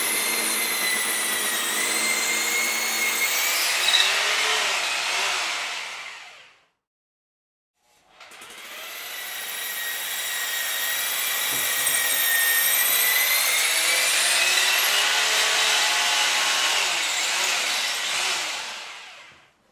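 Hammer drill boring into concrete in two runs, with a high whine over the rattling noise. The first run fades out about six seconds in. After a second's pause the drill starts again, builds up and runs steadily, then fades out near the end.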